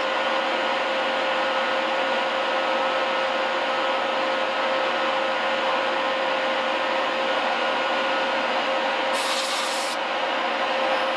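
Reiden milling machine cutting a metal block with an end mill under flood coolant: a steady cutting noise with a constant tone running through it. A short hiss about nine seconds in.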